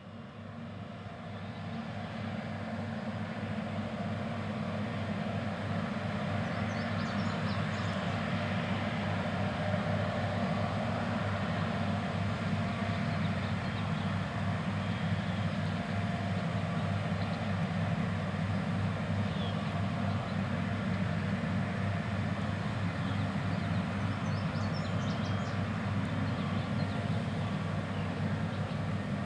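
New Holland CR8090 combines running steadily while harvesting wheat. The engine and machinery drone grows louder over the first few seconds, then holds steady.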